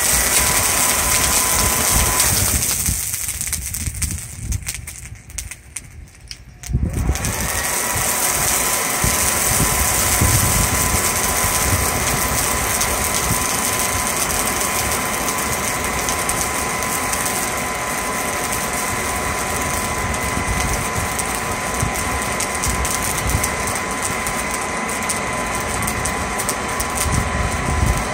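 Hairdryer blowing air into a charcoal forge's fire pot: a steady motor whine over rushing air. It winds down about two seconds in and comes back on about five seconds later, rising briefly in pitch as it spins up.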